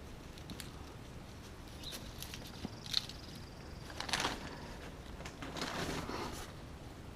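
Soil being scraped and pushed by hand around a planted bush in a flower pot, with scattered rustles, a sharp click about three seconds in, and a louder scrape a second later.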